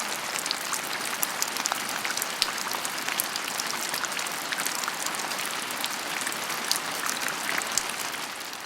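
Heavy thunderstorm rain falling steadily, with many separate drops striking a surface as sharp ticks.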